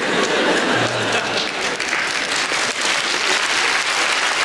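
Audience applauding: many hands clapping in a steady patter.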